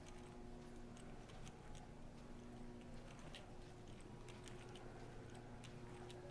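Near silence: quiet room tone with a faint steady low hum and scattered faint clicks.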